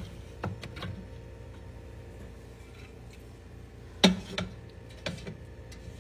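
Knocks and clinks of containers and fridge parts being handled while a refrigerator is cleaned out: two light knocks within the first second, a louder knock about four seconds in, then two more.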